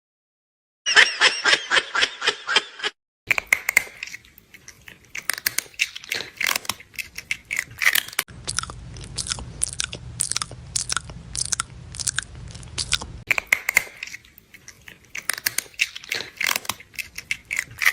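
A brief burst of laughter, then crunchy chewing: many sharp, irregular crunches one after another for the rest of the time.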